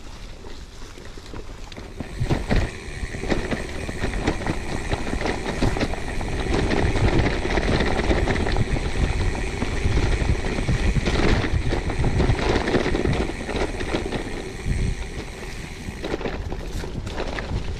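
Gravel bike ridden over a rough forest track: tyre noise and the bike rattling, with many small knocks. It gets louder about two seconds in and is loudest in the middle.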